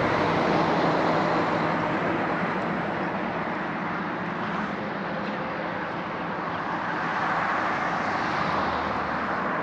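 Steady rush of distant road traffic with a faint engine hum, easing off slightly midway and swelling again near the end.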